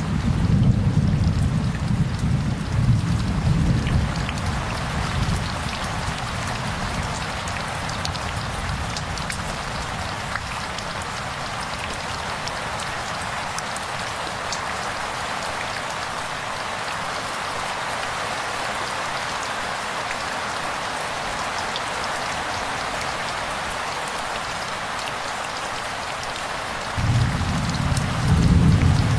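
Rain falling steadily, an even hiss. A deep low rumble sits under it for the first few seconds, dies away, and starts again suddenly near the end.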